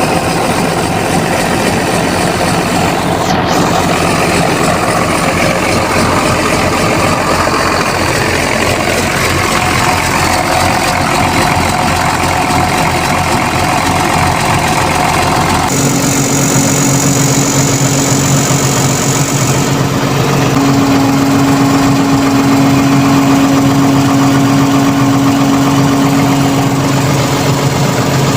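Backhoe's diesel engine running steadily. Its tone changes abruptly about halfway through, to a steadier, higher-pitched hum.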